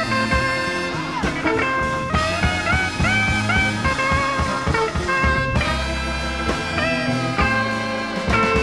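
Electric blues band playing a slow blues: lead electric guitar with bent, held notes over bass and drums.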